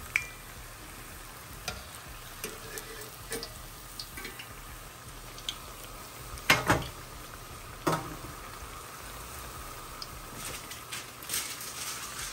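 Churro dough sizzling as it fries in hot oil, with scattered clicks and knocks throughout; the two loudest come about six and a half and eight seconds in.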